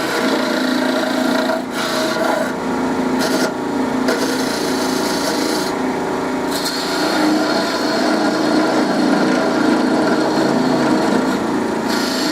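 Small wood lathe running with a steady motor hum while a parting tool scrapes into the spinning wood. The cutting noise drops out briefly a few times as the tool is eased off, then bites again.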